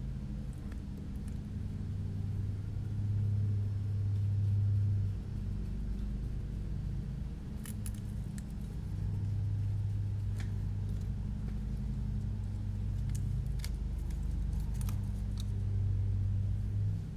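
A steady low hum that swells and eases in level. In the second half come a few light metallic clicks of a hex driver and small parts as an FPV drone frame is handled on a rubber mat.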